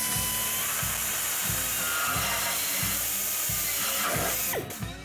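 Small high-speed power tool trimming at the bumper's lamp opening. Its motor whines up at the start, runs steadily with a hissing cutting noise for about four and a half seconds, then winds down.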